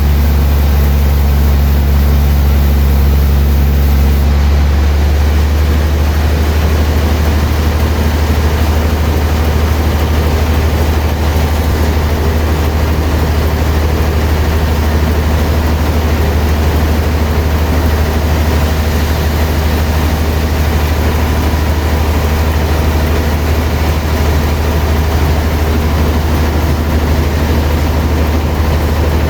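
Heavy sawmill machinery running steadily with a loud, low drone and a constant noisy rush over it; the low tone changes slightly about four and a half seconds in.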